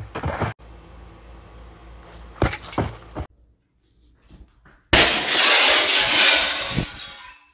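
Glass door shattering: a loud crash of breaking glass starts about five seconds in and runs for about two seconds before fading. A few short knocks come earlier.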